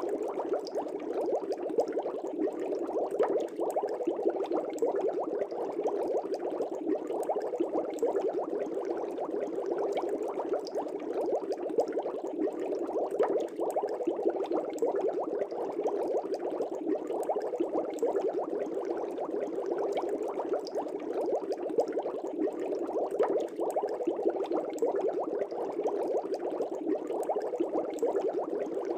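Air bubbles rising through a fish tank's water, a continuous dense bubbling made of many small pops that stays steady throughout.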